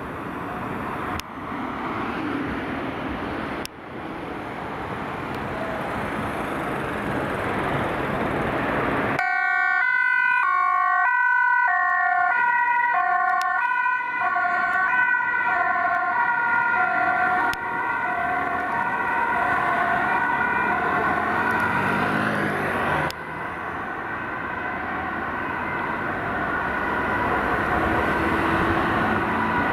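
Two-tone siren of a Volvo XC40 rapid-responder ambulance, alternating between a high and a low tone, over city traffic. It starts about a third of the way in; before that there is only street and vehicle noise.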